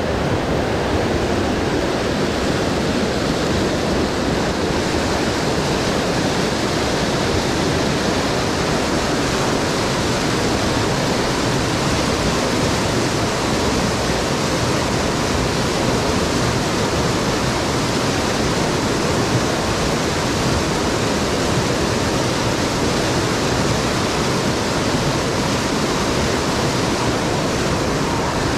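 Mountain stream water rushing, a loud, steady, unbroken wash of noise.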